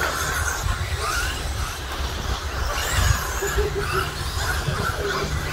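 Several 1/10-scale electric RC stadium trucks with 13.5-turn brushless motors racing on a dirt track, their motor whines rising and falling as they accelerate and brake, over a steady low rumble.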